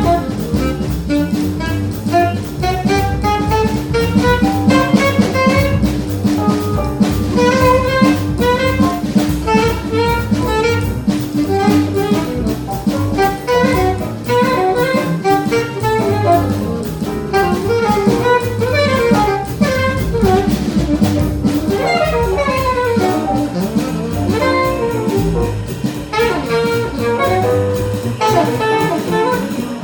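Live small jazz band playing in the bebop style: a horn plays fast runs of notes that climb and fall, over drum kit and bass.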